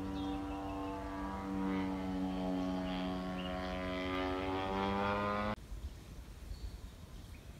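Model airplane engine and propeller droning steadily, its pitch wavering and rising a little; the sound cuts off abruptly about five and a half seconds in, leaving faint bird chirps.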